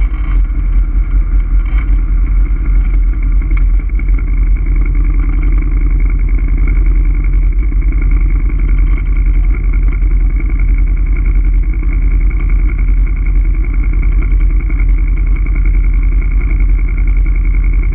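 ATV engine running steadily at a constant pace.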